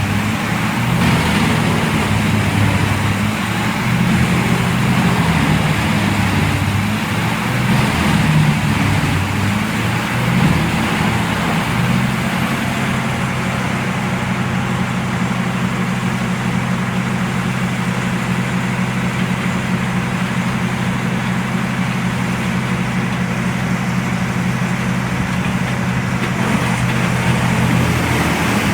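Large wood chipper's engine running at a steady, loud hum. It is rougher and more uneven in the first half and smooths out about halfway through.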